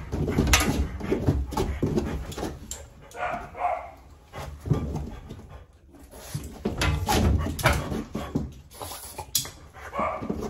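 French Bulldog, a flat-faced dog, breathing noisily and whining as he wriggles and jumps up against the groomer, with a few sharp knocks against the steel tub.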